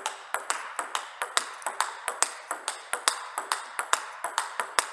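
A table tennis drive rally: the plastic ball clicks sharply and evenly back and forth between the rackets and the table, about four clicks a second. The rubber on the striking racket is the Haitian Hippocampus Speed, which plays fast but with a soft, vague contact on drives.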